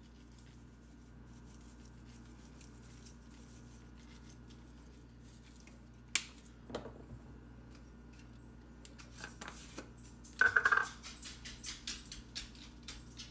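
Plastic spice bottles being handled and shaken over a frying pan, over a low steady hum. There is a sharp click of a cap about six seconds in, then a cluster of clicks and rattles from about nine seconds, loudest around ten and a half seconds.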